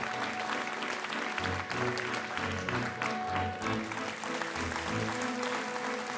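Audience applauding over a live band's instrumental introduction, with a bass line coming in about a second and a half in.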